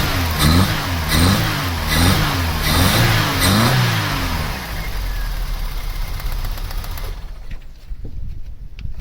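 A Vauxhall Cavalier's 1.8 litre four-cylinder petrol engine is revved up and down about five times, then drops back to a quieter, steady run. It has a misfire that the owner traces to cylinder 3 and suspects is a blocked injector.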